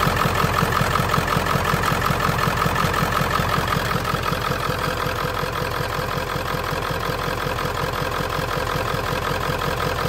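Ford 7.3-litre Power Stroke turbo-diesel V8 idling with a rapid, even pulse, heard close up with the hood open; it drops slightly in level after about four seconds.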